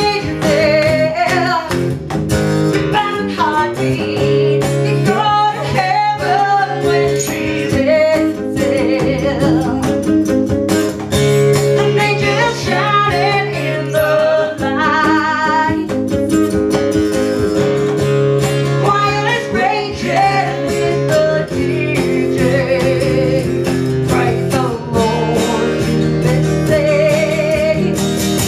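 Live band music: a woman singing lead over a strummed acoustic guitar, with a cajón keeping the beat.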